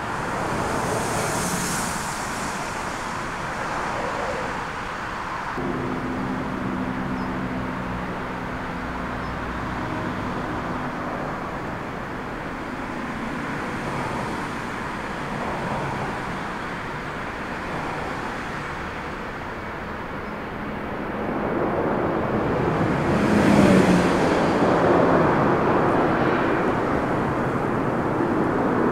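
Jet airliner's engines at takeoff power under gusty storm wind, a steady rush that grows louder late on as the jet passes close and lifts off.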